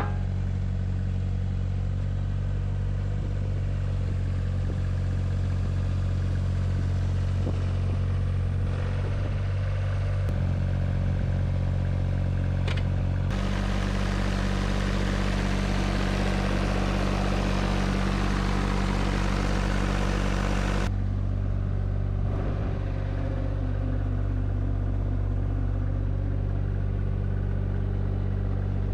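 JCB 8018 mini excavator's diesel engine running steadily. About a third of the way in the note shifts and turns brighter and busier with more clatter, heard up close at the open engine bay. It settles back to a lower, smoother note about two-thirds of the way through.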